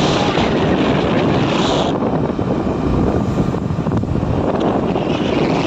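Heavy wind buffeting the microphone while riding on a moving two-wheeler, over the steady rumble of the vehicle and its tyres on the road. A higher hiss drops out about two seconds in and comes back near the end.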